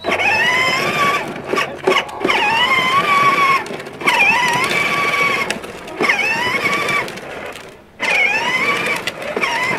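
A young child's high-pitched voice making long, wavering wordless sounds, five in a row, each about a second long with short breaks between.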